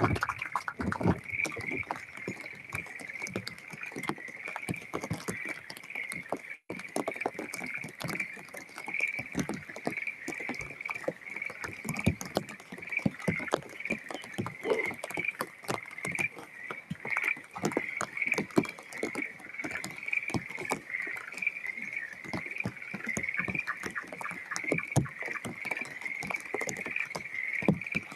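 A chorus of frogs calling steadily, a continuous pulsing trill, with frequent irregular ticks of raindrops close by.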